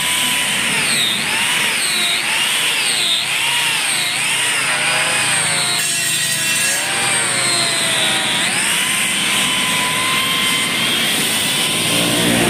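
An electric power tool working metal: its motor whine sags and recovers about once a second as it is pressed into the work, then runs evenly for the last few seconds.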